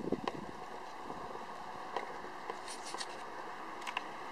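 Hoofbeats of a horse loping on arena sand: a few soft thuds, loudest right at the start, and scattered sharp clicks over a steady outdoor hiss.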